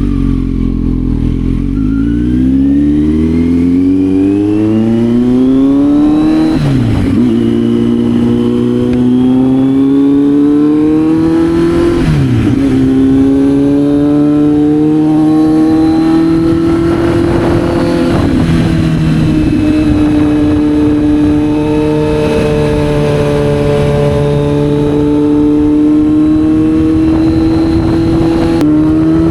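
Kawasaki Z900's inline-four engine accelerating through the gears. The pitch climbs, drops sharply at upshifts about seven and twelve seconds in, then holds almost steady at cruising revs.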